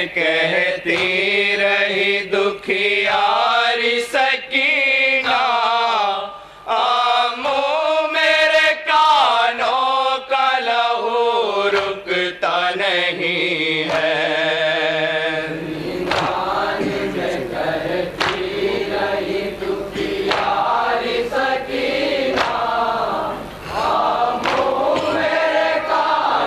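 A group of men chanting an Urdu noha (Shia lament) through a PA microphone, unaccompanied, in a slow melodic line. A little past halfway the sound thickens into a fuller chorus of many voices.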